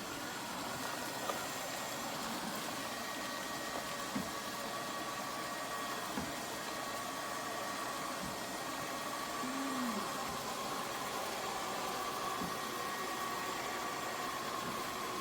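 Lefant M210 Pro robot vacuum running with a steady whir and hiss and a faint thin hum, with a few light clicks.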